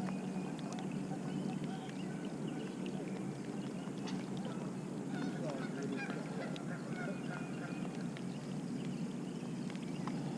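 Faint honking calls of waterfowl, several short calls mostly in the middle of the stretch, over a steady low hum.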